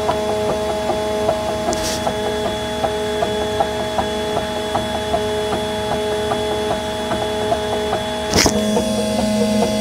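Prusa i3 MK2S 3D printer running its first print layers: the stepper motors whine steadily at a few fixed pitches, with quick, uneven ticks as the print head changes direction. A short hiss comes about two seconds in, and a louder brief noise a little after eight seconds.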